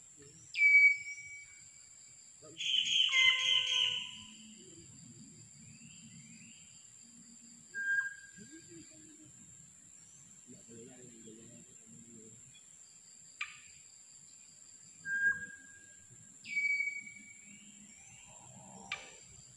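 Birds giving loud whistled calls several times, some sweeping down in pitch and then holding, one a longer many-toned call about three seconds in. Under them runs a steady high insect drone.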